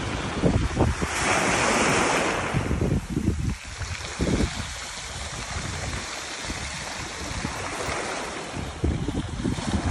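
Sea waves breaking and washing up a pebble beach, the surge loudest about one to three seconds in, with wind gusting on the microphone.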